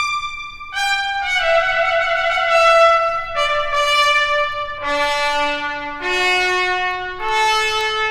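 Trumpet playing a slow phrase of long held notes. The notes step down in pitch and then climb again near the end.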